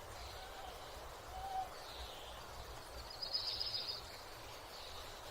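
Morning outdoor ambience: birds chirping high over a steady background hiss and low rumble, with a quick run of rapid chirps about three seconds in and a single short low hoot about a second and a half in.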